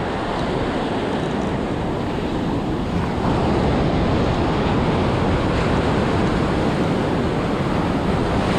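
Surf washing on the beach with wind buffeting the microphone, a steady rushing noise that grows a little louder about three seconds in.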